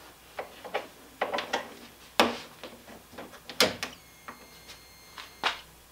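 A few sharp clicks and handling knocks as the XYZprinting da Vinci Jr. 1.0 3D printer is switched back on. About four seconds in, a faint steady high whine starts from the powered-up printer.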